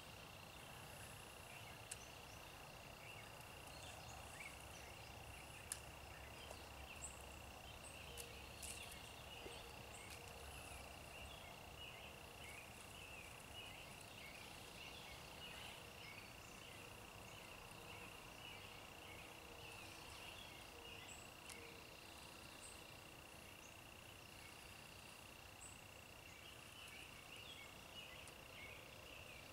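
Faint outdoor ambience of insects: one steady, unbroken high-pitched trill, with scattered short chirps and a few soft clicks.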